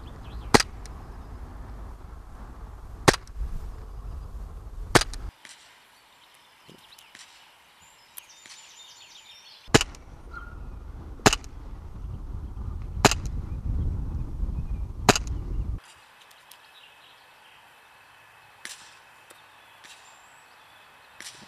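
Swiss Arms P1911 CO2 blowback BB pistol firing single shots: seven sharp cracks, a second or two apart, with wind rumbling on the microphone between them. Two quieter spells without shots, one of them near the end, hold only a couple of faint ticks.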